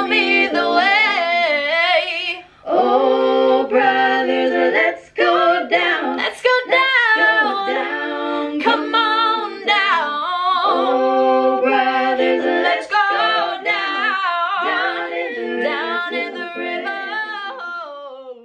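A woman singing a cappella, her voice layered with repeating vocal loops from a loop station. It fades out near the end.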